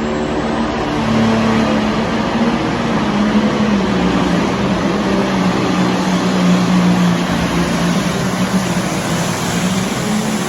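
Competition pulling tractor's engine running flat out during a pull: a loud, continuous engine note that sinks slowly in pitch as the tractor works against the sled.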